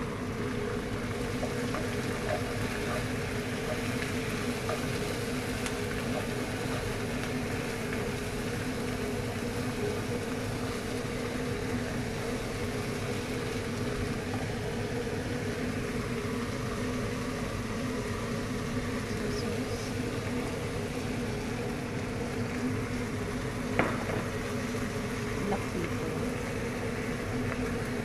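Chicken pieces with sliced onion and bell peppers frying in a pan, a steady sizzle over a steady low hum. A single sharp knock comes near the end.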